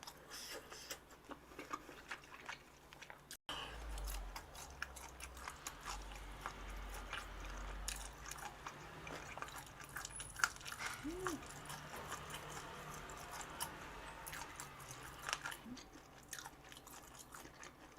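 A person chewing and biting food close to the microphone, with many small crunchy clicks; the sound breaks off for an instant about three and a half seconds in.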